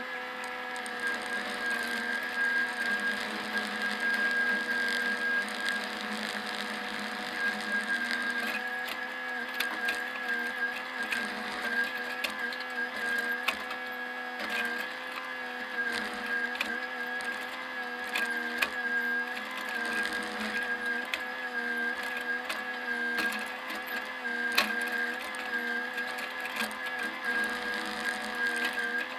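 Bobcat mini excavator's diesel engine running steadily under load with a hydraulic whine, heard from inside the cab, while the bucket digs. Frequent short knocks and clanks run through it.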